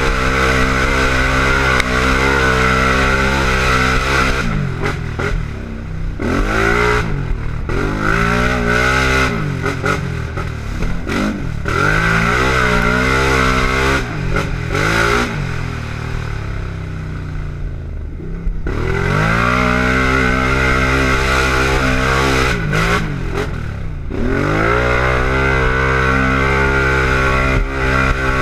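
Race quad's engine under hard throttle on a dirt trail, its pitch climbing and dropping over and over as the rider shifts and lets off. There is a lower, easier stretch about two-thirds through before it winds up again.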